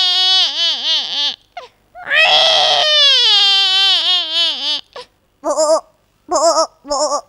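A woman's voice imitating a small child crying: a wavering wail, a second longer wail about two seconds in, then three short sobbing cries near the end.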